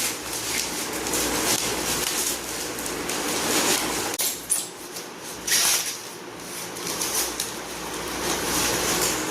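Handling noise: rustling with small knocks and squeaks, like packaging and a frame being unpacked, quieter for a couple of seconds about halfway through.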